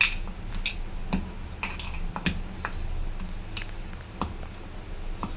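Chicken pieces being mixed by hand in a bowl with a wet marinade of ginger-garlic paste and lemon juice: irregular squelches and light clicks.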